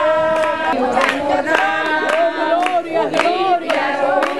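A group of people singing a hymn together, several voices at once, with hand claps keeping the beat.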